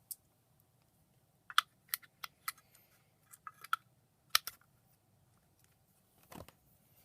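Scattered sharp clicks and small taps, about a dozen, some in quick runs, from hands handling a Joyetech eVic VTC Mini vape box mod as it is being closed up.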